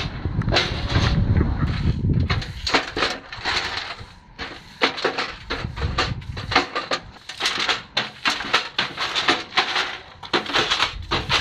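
Push broom with plastic bristles sweeping grit and scraps across concrete in many short, irregular scraping strokes. A low rumble underlies the first couple of seconds.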